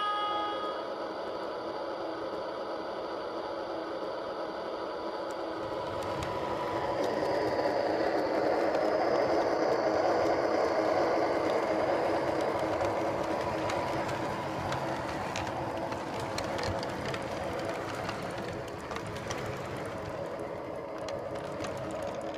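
MTH model subway train pulling away along its track. A horn cuts off at the start, then the rolling noise of the cars on the rails grows to its loudest about eight to twelve seconds in as they pass, with light clicks, and fades as the train moves off.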